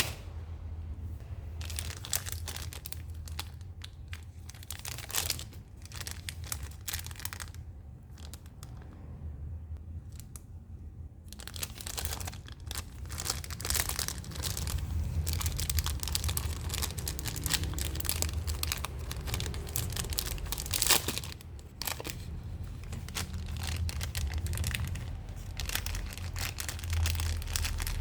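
Thin plastic snack wrapper of a Big Katsu packet crinkling and tearing as it is handled and opened, in dense rapid crackles with a quieter pause about a third of the way in. A steady low hum runs underneath.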